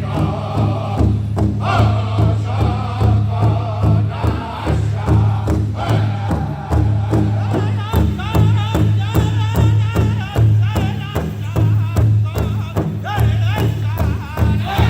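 Powwow drum group singing over a steady, even beat on the shared drum, about two to three strokes a second. Higher, wavering voices come in about halfway through.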